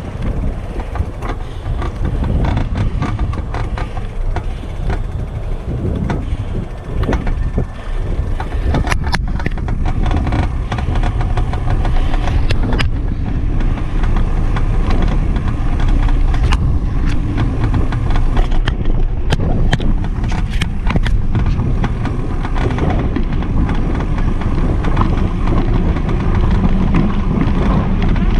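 Wind buffeting the microphone of a camera riding on a moving bicycle, a loud steady rumble, with frequent small clicks and rattles from the bike rolling over the paving joints.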